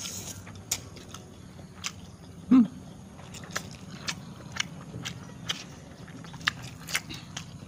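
Close-up noodle-eating sounds as instant noodles are slurped up with chopsticks and chewed, with irregular wet mouth clicks and smacks. A short grunt from one of the eaters about two and a half seconds in is the loudest sound.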